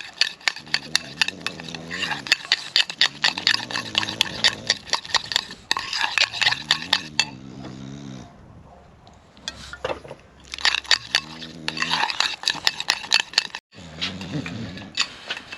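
Metal utensils clinking and scraping against pots and dishes in rapid, irregular strokes, with a short lull about halfway through.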